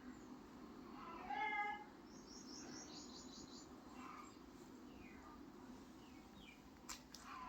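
A cat meowing once, a single call of about half a second, about a second and a half in, over a steady low hum.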